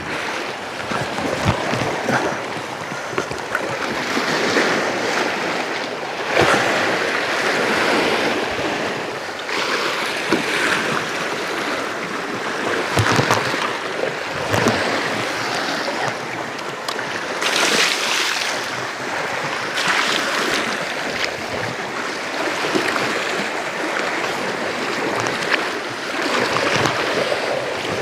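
Sea surf washing and splashing against shore rocks, rising and falling in irregular surges.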